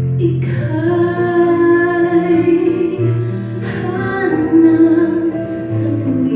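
A woman singing a slow song into a microphone, holding long notes in two phrases, the second beginning about three and a half seconds in, over a low, steady instrumental backing.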